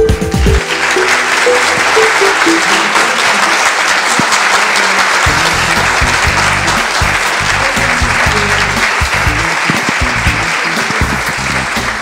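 Audience applauding, starting about half a second in and going on steadily, with background music playing underneath.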